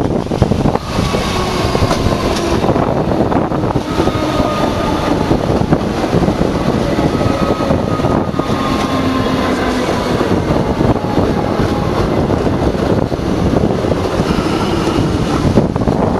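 Comeng electric suburban train running past close by: a loud, steady rumble of wheels on the rails with a faint whine riding over it.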